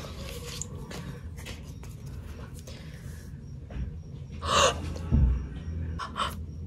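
Light handling noises of album packaging over a low steady hum, with faint scattered clicks; a short sharp gasp about four and a half seconds in, a low thump just after it, and two quick clicks near the end.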